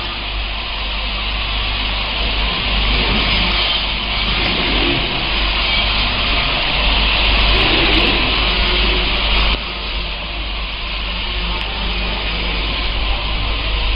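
Steady hiss over a low steady hum, with no distinct events. It gets slightly louder in the middle and drops a little, suddenly, about nine and a half seconds in.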